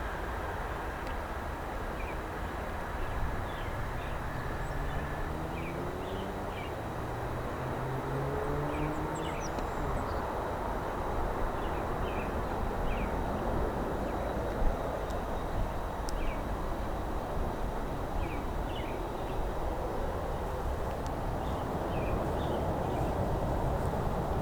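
Boeing 737 MAX 9's CFM LEAP-1B jet engines at takeoff power as it departs, a steady rushing noise. A pitched hum rises between about four and ten seconds in, and small birds chirp throughout.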